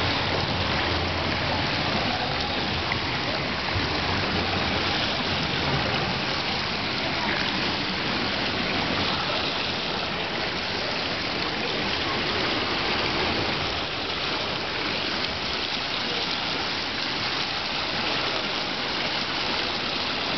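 Steady rushing of water, even and unbroken, with faint voices in the background.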